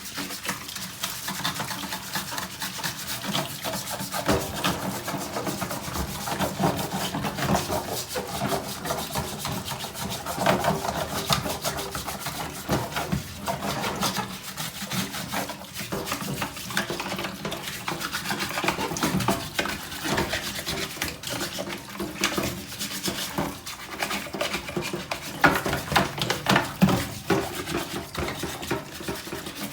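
Continuous scratchy scrubbing of caked dirt off the plastic parts of a Samsung washing machine's wash plate and filter, in quick back-and-forth strokes.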